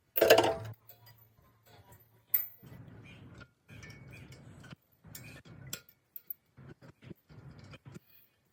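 Metal tools and parts clanking during repair work. A loud ringing clang comes right at the start and a sharp click a little after two seconds, followed by faint stop-start rattling and scraping.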